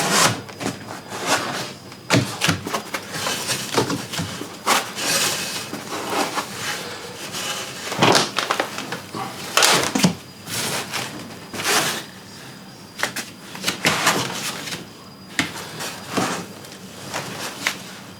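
Cardboard box and packing foam scraping and rustling, with irregular knocks and clunks, as a large heavy PC case is worked out of its shipping box.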